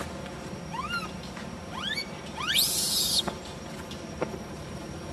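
Baby monkey crying: a few short squeals rising in pitch, then a louder, harsher shriek about two and a half seconds in.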